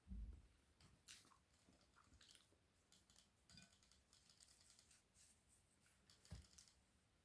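Quiet close-miked eating of flatbread: soft chewing with small moist mouth clicks and crackles, and a couple of soft low bumps, one at the start and one about six seconds in.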